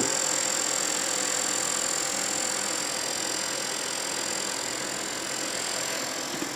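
Desktop computer just powered on, its fans and power supply whirring with a steady hum that eases off slightly.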